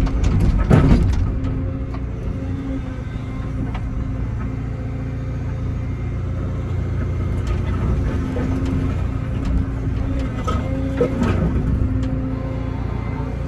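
Excavator's diesel engine running steadily under load while it tears out a concrete pad. A loud crack of breaking concrete comes about a second in, and more concrete clatters near the end.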